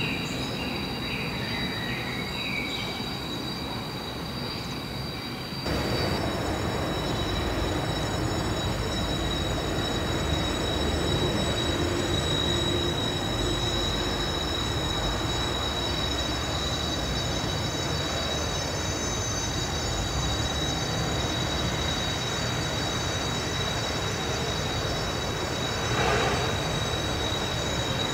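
Freight train of small tank wagons rolling slowly through a rail yard, its wheels squealing in several steady high tones over a low rolling rumble. The sound jumps louder about six seconds in, and there is a short louder swell near the end.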